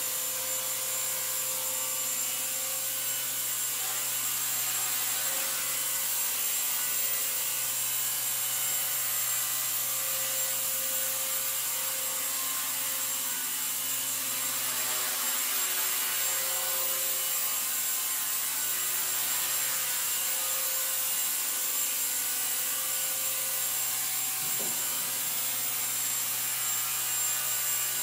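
Align T-Rex 250 SE electric RC helicopter hovering: a steady whine from its electric motor and rotor over an even hiss from the spinning blades.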